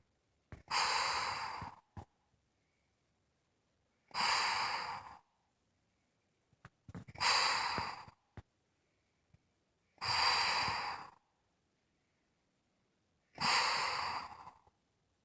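Unusual snoring: five airy snores, each about a second long, coming roughly every three seconds.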